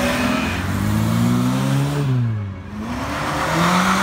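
Car engines accelerating past one after another: one engine revs up, then falls away sharply about halfway through, and another engine rises in pitch near the end as the next car drives up.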